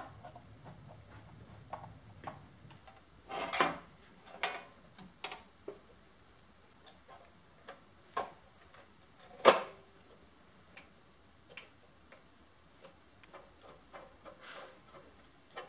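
Screwdriver clicking and scraping on the screws and sheet-metal covers of a milling machine's electrical and control panels, with scattered light knocks as the panels are handled. Two louder knocks come about three and a half and nine and a half seconds in.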